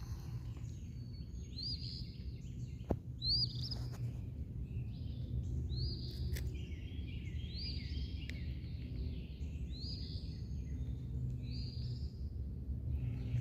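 Wild birds chirping: short, rising-then-falling high chirps repeated about every second and a half, with more birds calling together in the middle, over a steady low background rumble.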